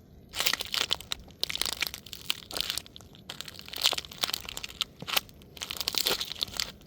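Toy car crushed under a sneaker, cracking and crunching in about six separate bursts of sharp snaps and crackle.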